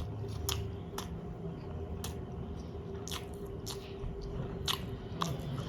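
A person chewing a mouthful of chicken biryani, with wet smacking and sharp mouth clicks at irregular moments, roughly one every half second to a second.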